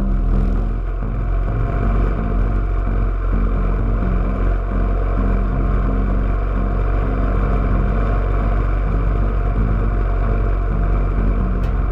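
Yamaha SR single-cylinder motorcycle running steadily on the move, with wind rush.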